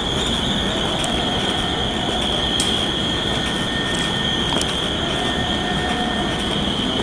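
Train noise: a steady high-pitched whine held throughout over a low rumble, with a few faint clicks.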